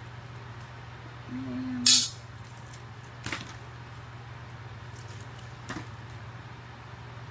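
Small metal scrap pieces clinking as they are picked up and dropped. One sharp clink about two seconds in is the loudest, and two lighter clinks follow. A steady low hum lies under it all.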